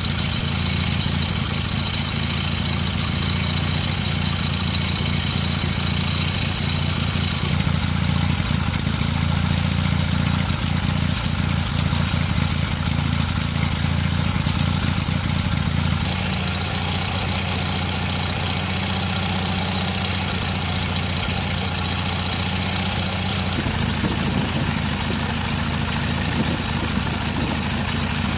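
Norman T300 air-cooled flat-twin petrol marine engine running steadily.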